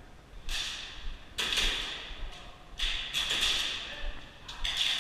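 Airsoft guns firing four short bursts in quick succession, each a sharp crack trailing off in a hiss.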